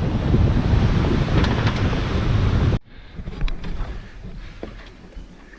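Wind buffeting the microphone over the sea at sunset, a loud, heavy rumble that cuts off abruptly a little under three seconds in. A much quieter stretch follows, with a few faint ticks.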